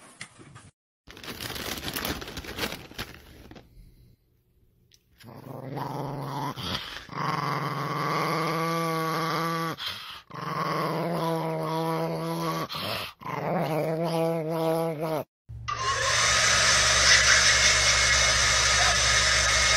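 Small dog growling in several long, wavering bouts with short breaks between them. Near the end a louder, noisy sound with a low hum takes over.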